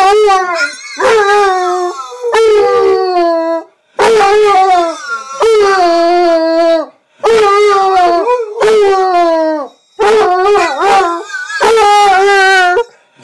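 Basset hound howling, a string of about eight long howls, each starting high and sliding down in pitch, with short breaks between them.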